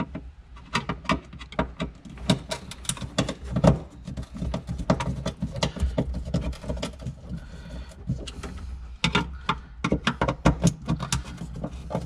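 Screwdriver backing out the front and rear mounting screws of a bilge pump float switch: a run of irregular small clicks, taps and scrapes of metal and plastic, with a steady low hum underneath.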